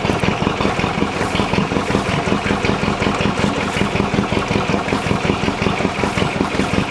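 Engine of a canal boat towing the kayak, running steadily with a fast, even chug.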